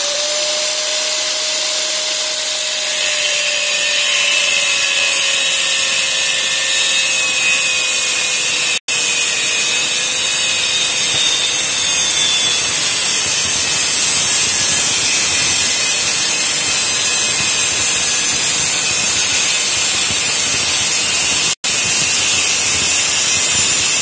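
Handheld angle grinder with a thin cutting wheel running steadily and cutting into an aluminium window sash profile: a continuous harsh cutting noise over a steady motor whine. The sound cuts out for an instant twice.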